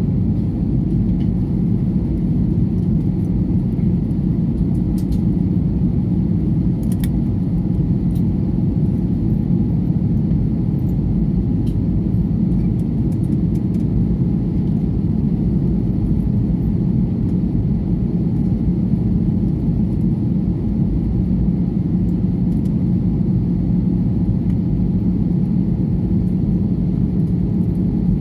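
Steady cabin noise of a narrow-body jet airliner descending to land: engine and airflow rumble with a constant low hum, unchanging throughout.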